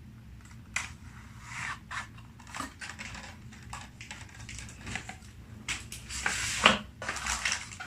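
Hands handling a small packaged watch strap and its packaging: plastic rustling with scattered light clicks and taps, busiest and loudest about six to seven and a half seconds in.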